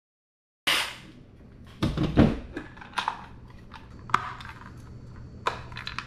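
Handling noise on a workbench: after half a second of silence, a sharp knock, a cluster of heavier knocks about two seconds in, then scattered light clicks and taps. These come from a cordless jigsaw and a plastic electrical box being handled against a small wooden mounting plate, with the box pressed into the plate's cut-out.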